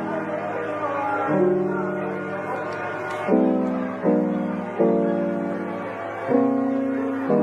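Background music: soft piano-led instrumental with sustained chords that change about once a second.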